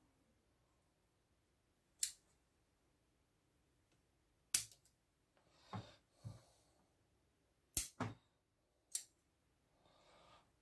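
Bonsai pruning shears and cutters snipping twigs off a small field elm bonsai: about seven short, sharp snips at uneven intervals, two of them in quick succession.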